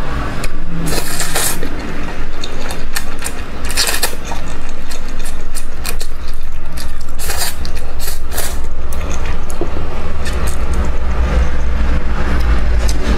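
Close-miked eating sounds: chewing and crunching with many irregular sharp clicks and smacks, over a steady deep rumble.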